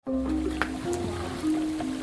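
Background music: held notes that step between two pitches over a steady low bass, with a few light clicks.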